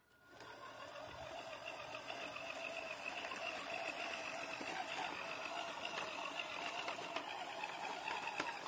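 Radio-controlled scale model Star 200 dump truck driving over gravel: its small drive motor and gears whine steadily, with the tyres crunching on the stones. It grows louder over the first second or so as the truck comes closer.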